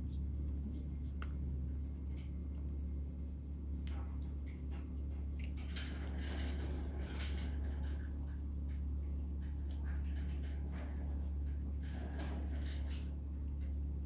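Heat-shrink tubing and thin wire being cut and worked by hand with pliers: scattered light clicks, snips and rustles, busiest about halfway through and near the end, over a steady low hum.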